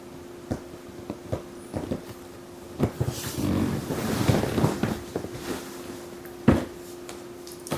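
Cardboard boxes being handled and opened by hand: scattered light taps and knocks, a stretch of rustling and scraping in the middle, and one sharp knock near the end.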